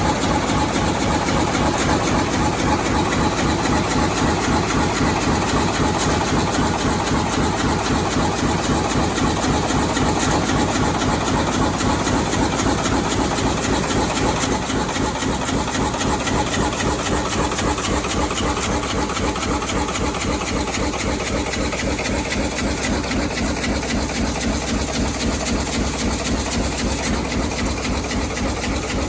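H-type fin press stamping heat-exchanger fins, running continuously at a fast, even stroke rate with a rapid mechanical clatter. It gets slightly quieter about halfway through.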